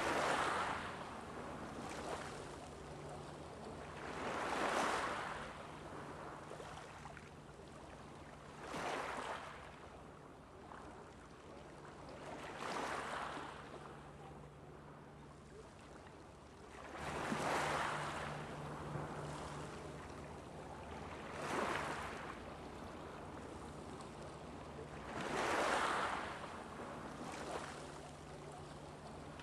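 Small waves breaking on a shore and washing back, one about every four seconds, with a faint steady low hum underneath.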